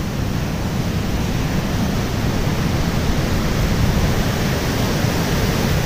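Gentle surf breaking on a sand beach: a steady wash of wave noise, with a low rumble of wind on the microphone.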